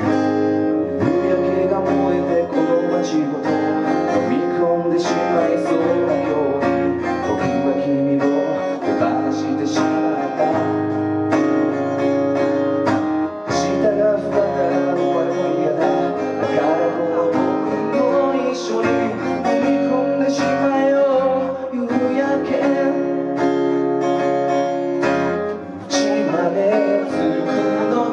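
Acoustic guitar strummed steadily in chords during a live solo song performance.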